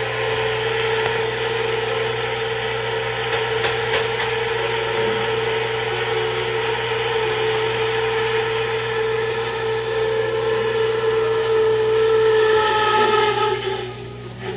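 Over-the-stove range hood exhaust fan running steadily with a low hum and a whine, switched off at the very end.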